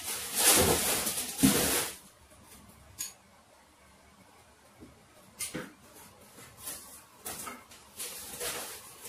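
A metal ladle scooping broth from a stainless steel stockpot and pouring it into a bowl: a noisy pour and splash in the first two seconds, then quieter scrapes and light clinks of the ladle against the pot.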